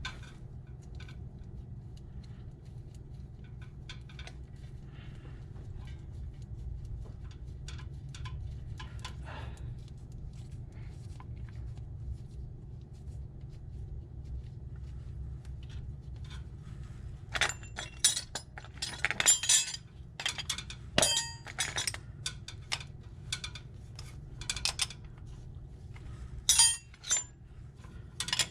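Sharp metallic clinks of a hand tool against metal parts, in a quick cluster about two-thirds of the way in and again near the end, over a steady low hum.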